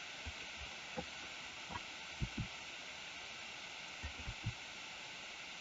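Quiet steady hiss of room tone and microphone noise, with a few faint, soft taps from keyboard keys and mouse clicks, several of them close together near the end.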